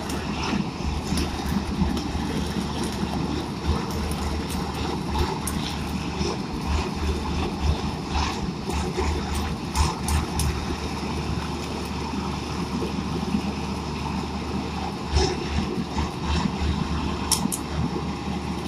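Holland truck-mounted flash-butt rail welder working automatically on a rail joint: the welding head crackles irregularly as it throws sparks, over the steady running of the truck's generator.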